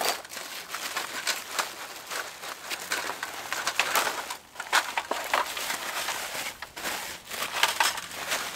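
Bubble-wrap and plastic packaging crinkling and rustling in irregular bursts as a titanium tent stove is unwrapped and lifted out of its padded carry bag.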